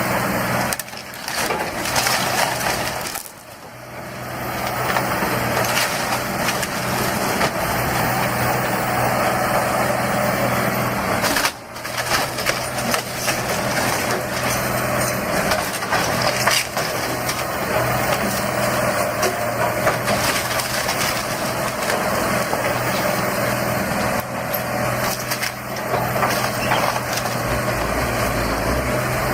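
A heavy machine's diesel engine runs steadily under continuous crushing and cracking of demolition debris. The sound drops out briefly about three seconds in and again near twelve seconds.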